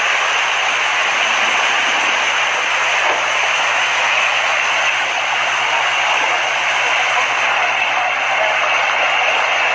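Steady, dense splashing of a mass of fish thrashing in shallow muddy water, with water pouring down from a truck's platform into the pond.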